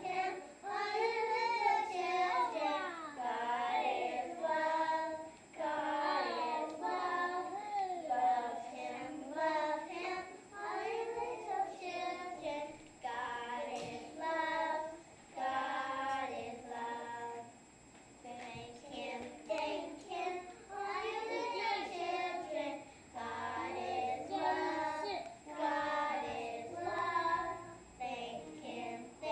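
A small group of young children singing a song together in short phrases, with brief breaks between lines.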